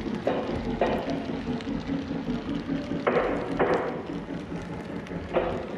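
Model train passenger cars rolling along the track with a steady rumble, their wheels clicking over rail joints in pairs about every two and a half seconds.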